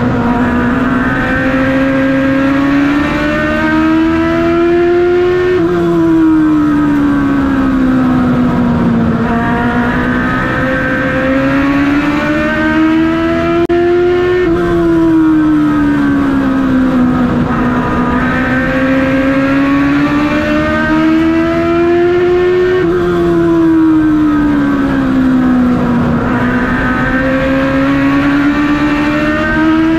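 A stock car's V8 engine running hard, heard from inside the cockpit. The revs climb steadily for several seconds, then fall back, over and over about every eight to nine seconds: accelerating down the straights and lifting into the turns of an oval.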